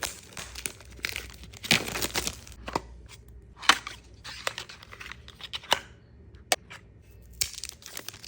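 Earbud retail packaging being opened by hand: plastic film tearing and crinkling, broken by irregular clicks and taps of the small box.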